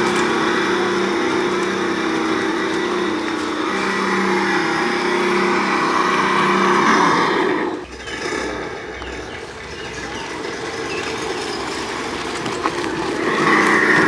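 Homemade 1/6-scale RC truck's motor and gearbox whining steadily as it drives. It drops off sharply about eight seconds in and picks up again near the end.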